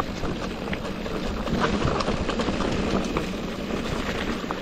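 Mountain bike rolling down a stony dirt trail: tyres on gravel and rocks with a dense run of rattles and clicks from the bike.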